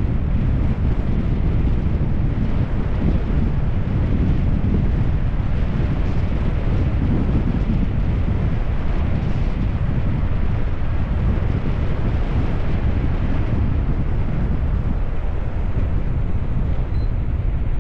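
Steady wind buffeting a GoPro action camera's microphone as a bicycle coasts fast downhill, a loud, even rushing with no break.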